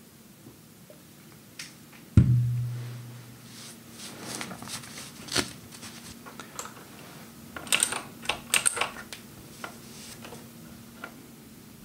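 A single low thud about two seconds in, then computer keyboard typing: irregular keystrokes, with a quick cluster of loud clicks near the end.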